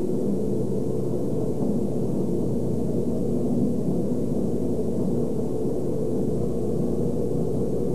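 Caterpillar hydraulic excavator's diesel engine running steadily as the machine works at demolishing a house, a loud even hum with no distinct crashes.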